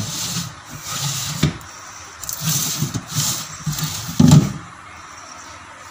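Sliding glass panels of a plywood cabinet pushed along their track, giving several rubbing swishes one after another, with a louder knock a little past four seconds in.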